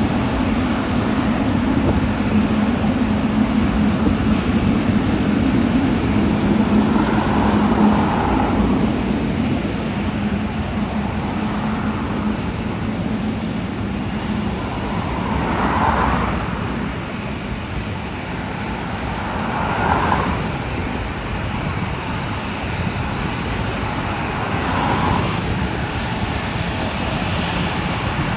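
Jet airliner engine noise near the runways: a steady low drone that fades out about halfway through, with several short swells like passing road traffic.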